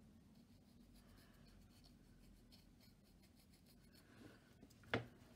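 Faint, scratchy strokes of a fine paintbrush working paint onto a doll's hard epoxy-sculpt face, then one sharp knock near the end.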